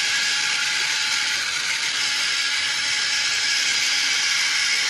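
X-Acto electric pencil sharpener running with a pencil in its cutter: a steady grinding noise over a faint, even motor hum. It sharpens very slowly.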